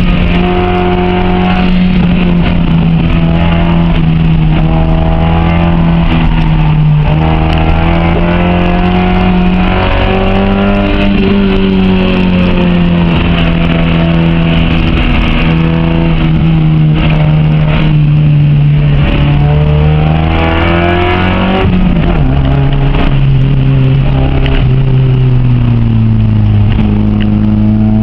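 Honda H22A four-cylinder engine in a Civic running hard under load, its revs rising and falling as the car is driven through gears, with sudden drops in pitch at the gear changes about 11, 22 and 27 seconds in.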